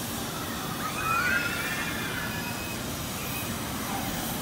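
Steady outdoor background noise around the standing Denver & Rio Grande steam locomotive No. 340, which is in steam. About a second in there is a brief high sound that sweeps up in pitch and then holds for about a second; it is the loudest moment.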